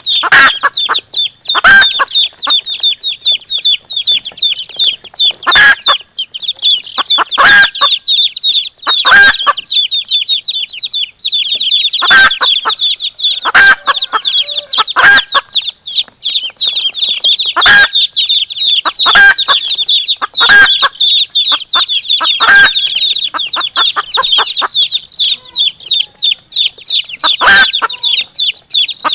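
Domestic chicks peeping continuously in a rapid, high-pitched chorus. Over them a hen gives short clucks every second or two, with a pause of a few seconds near the end.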